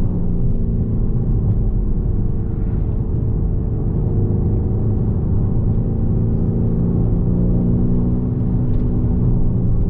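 Lamborghini Urus's twin-turbo 4.0-litre V8 running at a steady cruise, its pitch easing slightly down over the first few seconds and then holding level.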